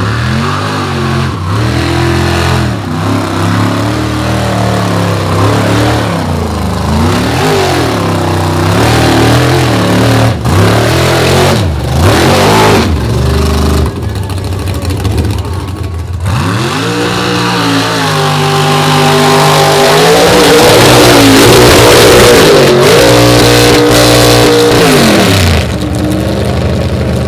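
Lifted mud-bog trucks' engines revving hard as they plough through a mud pit, the pitch surging up and down with several brief breaks. Later one engine climbs to high revs, holds there for several seconds as the loudest part, and then drops off sharply.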